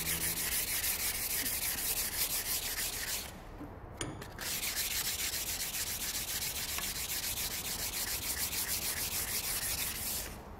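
A hand-held abrasive block is rubbed in quick back-and-forth strokes along a steel knife blade, a steady rasping scrape as the blade is ground by hand. The strokes pause briefly about three seconds in, with a single click, then carry on until just before the end.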